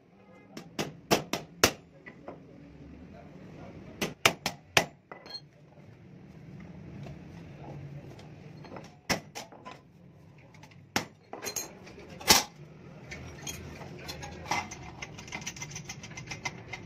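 Sharp metallic clinks and taps from steel clutch plate parts being handled and fitted together. They come in quick clusters of three or four near the start and about four seconds in, then as single strikes, the loudest about twelve seconds in, with lighter ticking near the end.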